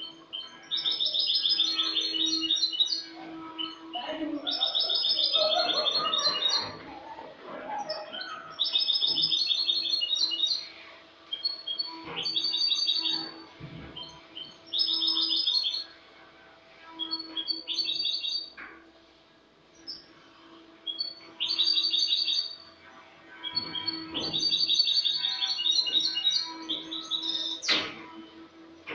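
European goldfinch (Spanish jilguero) singing its clean song (cante limpio): about eight phrases of rapid, high twittering notes, each a second or two long, with short pauses between. A steady low hum runs underneath, and there are a couple of sharp clicks near the end.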